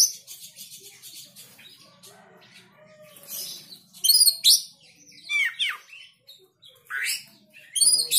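Oriental magpie-robin (kacer) singing: a run of short, loud, varied phrases with sweeping whistled notes and harsh chattering bits, separated by brief pauses. It is the worked-up kacer song that sets other kacers off singing.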